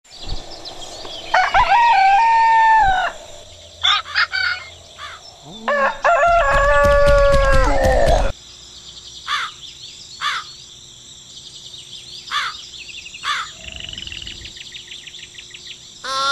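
A rooster crowing twice, the second crow longer and louder, with short bird chirps scattered between and after.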